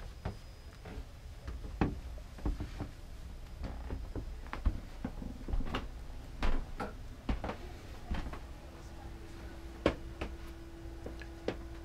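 Irregular knocks and clicks from wooden cabin doors and their latches being opened, and from a handheld camera being handled while walking through, over a low rumble. A faint steady hum comes in about two-thirds of the way through.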